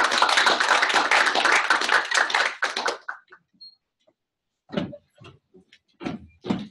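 Audience applauding for about three seconds, the clapping stopping fairly suddenly. A few brief, scattered sounds follow near the end.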